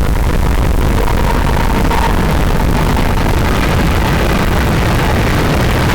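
Heavily distorted, bass-heavy steam train whistle sound effect: a loud, steady, rough noise with a deep rumble underneath, a faint whistle tone showing through briefly about one to two seconds in.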